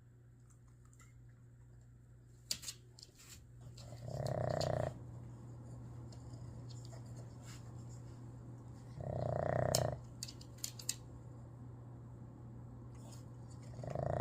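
Boston terrier snoring: two long snores about five seconds apart, the second the louder, with a third starting at the very end. A few faint sharp clicks come between the snores over a steady low hum.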